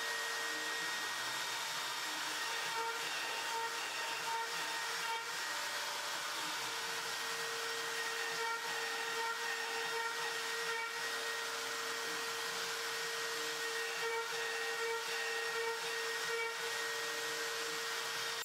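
Makita trim router, serving as the spindle of an X-Shaper Plus CNC router, running steadily at high speed with a whine over a hiss as it cuts insert holes into an MDF spoil board.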